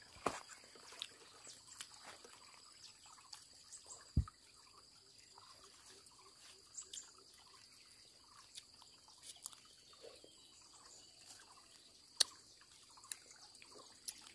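Quiet handling of a leafy fruiting shrub branch: faint rustles of leaves and twigs with scattered small clicks, and a short low thump about four seconds in. A steady faint high-pitched tone runs underneath.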